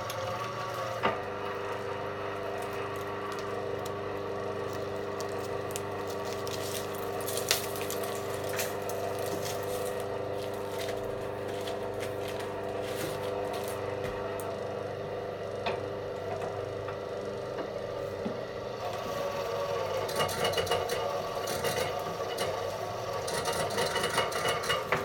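Small electric cable-stripping machine with a 0.18 kW motor running with a steady hum, with scraping and rattling clicks as a cable is fed through and its insulation is slit. The rattling grows busier and louder near the end.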